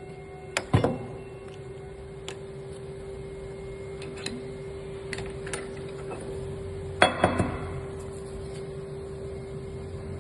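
Steady motor hum with sharp metal clanks: two just under a second in, two more around seven seconds in, and a few lighter clicks between, from work with a core drilling machine and vise on steel.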